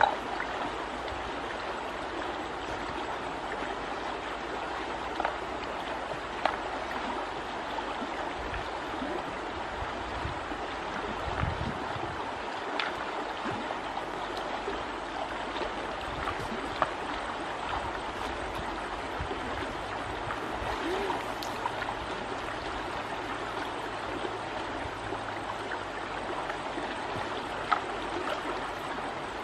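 Steady rush of flowing river water, with a few brief splashes as hands work in the water.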